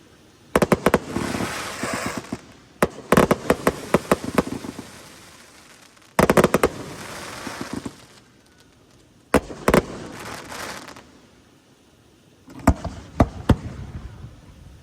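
Aerial fireworks going off in about five volleys of sharp bangs. Each volley trails into a noisy, crackling fade before the next one goes up.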